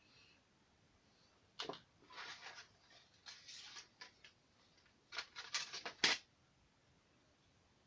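Small metal parts handled against a shotgun receiver: a sharp click about a second and a half in, two short stretches of scraping, then a quick run of clicks ending in a louder knock about six seconds in.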